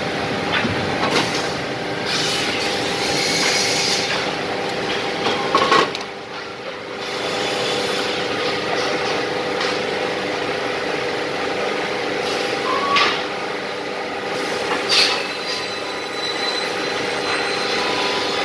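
Woodworking precision cross-cut saw running with a steady machine hum, with three short louder moments: one about a third of the way through and two more past the middle.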